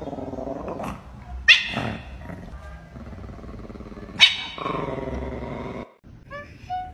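An animal gives a sharp yelp that breaks into a long growl, twice. Near the end, after a cut, an orange cat gives a few short meows.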